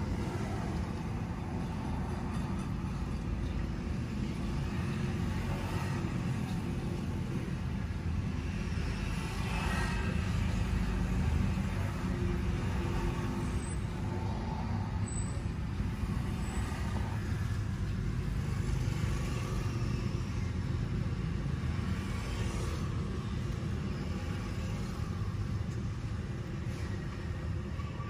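Steady low rumble of vehicle noise, even throughout with no distinct knocks or clicks.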